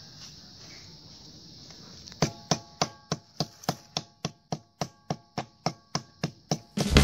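Knife chopping snake meat and bone, a steady run of sharp strikes about three a second beginning about two seconds in, each with a brief ringing tail. The meat is being minced together with its bones until the bones are crushed.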